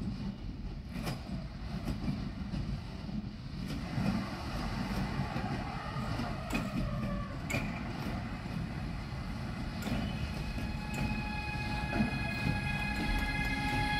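Siemens electric locomotive hauling a container freight train on approach: a rumble of wheels on rail that grows louder as it nears, with scattered clicks of wheels over rail joints. Near the end a steady whine of several tones comes in as the locomotive draws close.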